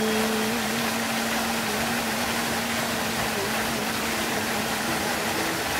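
Steady rush of the Nachi waterfall, with the tail of a long held chanted note that fades out about halfway through.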